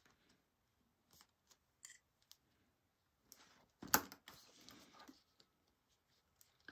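Sewing clips being fastened onto fabric: a few soft clicks, then a sharper click with a brief rustle of fabric about four seconds in.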